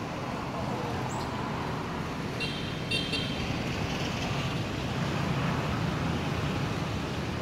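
Steady rumble of road traffic, with two short high toots about two and a half and three seconds in.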